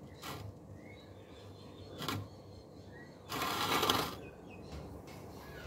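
Quiet close handling sounds: a few light clicks, then a short burst of noise about three seconds in, with faint bird chirps in the background.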